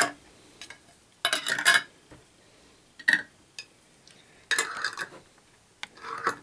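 Metal twist-off lids being set onto glass preserve jars and screwed down to seal them: several short bursts of metal scraping and clinking against glass, with quiet between.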